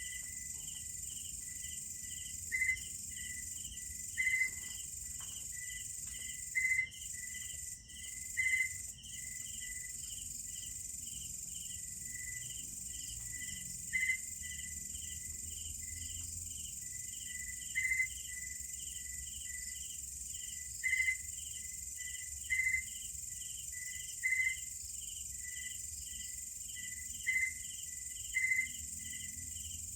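Night chorus of crickets and other insects: a steady high-pitched drone under a regular chirping of about three pulses a second, with louder short chirps breaking in irregularly every few seconds.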